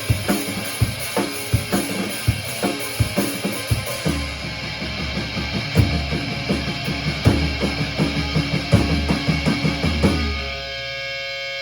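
Band playing an instrumental passage of a song in rehearsal, a drum kit with kick, snare and cymbals keeping a steady beat under the other instruments. Near the end the drums stop and a held chord rings on its own.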